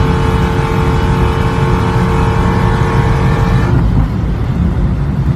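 Dodge Challenger SRT Hellcat Redeye's supercharged 6.2-litre V8 at sustained high speed, a steady, even whine over a dense low rumble. A little over three and a half seconds in, the whine drops away suddenly, leaving only the low rumble.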